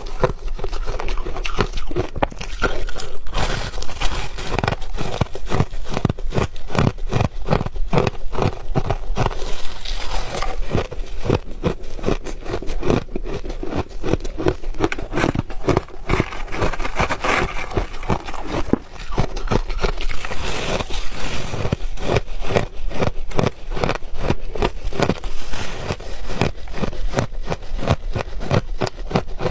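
Ice being bitten and chewed close to the microphone: a dense run of sharp, crackling crunches, several a second, that never lets up.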